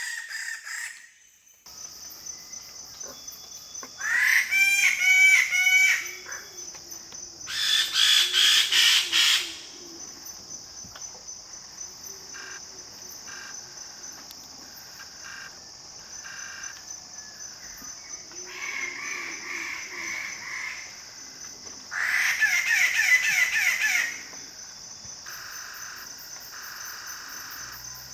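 Standardwing bird-of-paradise calling in loud bursts of rapid repeated notes, three times: about four seconds in, about eight seconds in, and near the end, with softer calls between. A steady high insect drone runs underneath.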